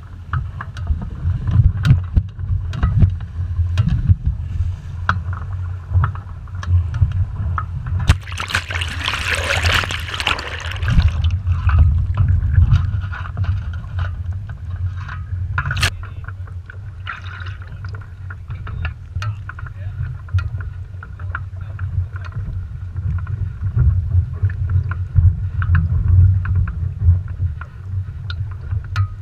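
Wind buffeting the microphone of a small sailing dinghy's mast camera as the dinghy capsizes, with a rush of splashing water about eight seconds in.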